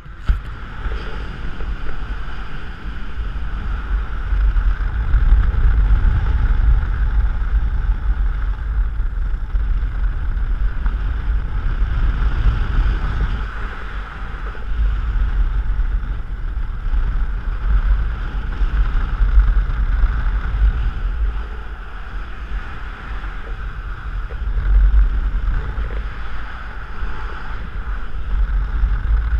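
Wind rushing over the camera microphone of a paraglider in flight. It is a loud, steady rumble with a hiss above it, swelling and easing every few seconds.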